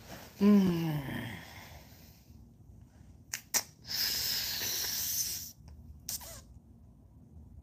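A young man's short wordless vocal sound, falling in pitch, close to a phone microphone, followed a few seconds later by two clicks and a long breathy puff of air against the microphone.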